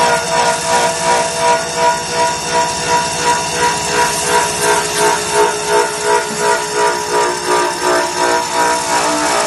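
CNC sink polishing machine's spinning abrasive wheel working against the side wall of a stainless steel sink bowl: a steady whine over a grinding hiss, pulsing evenly a little more than twice a second.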